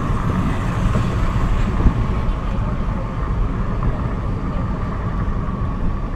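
Steady road noise of a car driving at speed, heard from inside the cabin: a low tyre and engine rumble with a faint steady whine above it.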